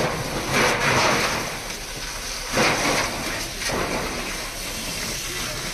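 Water from fire hoses spraying onto smouldering fire debris: a steady rushing hiss that swells about half a second in and again around two and a half seconds in.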